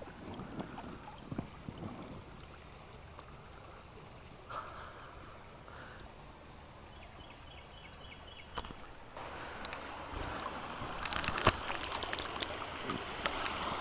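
Creek water flowing and lapping around inner tubes, faint at first and growing louder about two-thirds of the way in, with a few short knocks.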